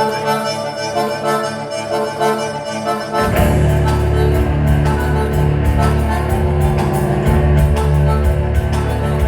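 Live rock band playing. A squeezebox holds sustained reedy chords, then bass and drums come in about three seconds in and the full band plays on.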